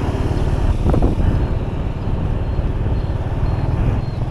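Steady low rumble of road vehicle noise, with wind buffeting the microphone.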